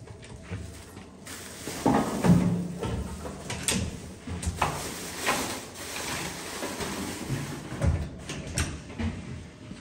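Stainless-steel rubbish chute hopper doors being pulled open and let fall shut while a bag of rubbish goes in: a string of irregular metal clanks and knocks, loudest about two seconds in.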